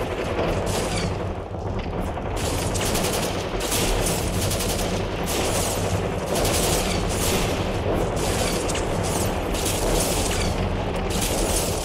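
Rapid, dense automatic gunfire, a recorded battle sound effect played over an auditorium's sound system, with a steady low hum underneath.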